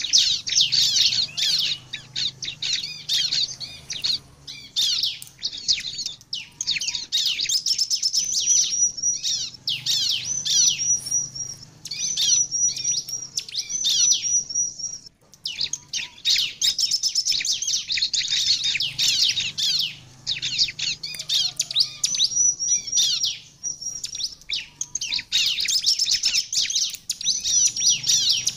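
Bar-winged prinia (ciblek) singing vigorously: long runs of fast, high chirps and trills with repeated sharp notes, broken by a few brief pauses.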